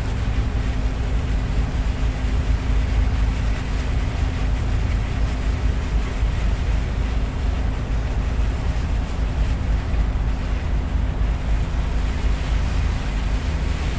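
Tugboat's diesel engine running steadily: a low, even drone with a constant hum in it.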